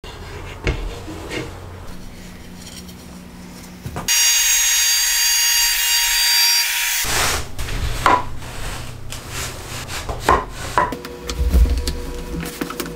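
Handheld wood router cutting plywood for about three seconds in the middle, a loud high-pitched whine over hiss that starts and stops abruptly. Before and after it, quieter workshop handling sounds: clicks, knocks and rubbing of wooden pieces and clamps.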